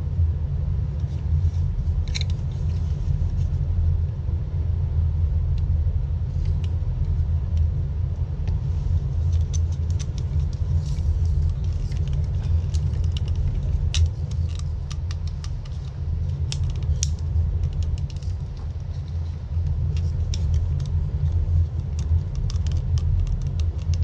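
A steady low rumble throughout, with scattered light clicks and clinks of brass hose fittings being screwed onto a small pump, thickest in the middle of the stretch.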